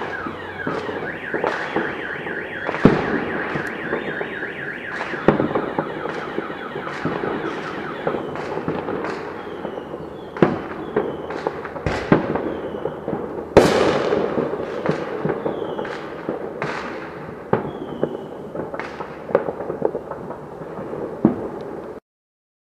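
Fireworks going off in a rapid barrage: repeated sharp bangs with crackling and short whistling tones between them, the loudest bang about two-thirds of the way through. The sound cuts off suddenly near the end.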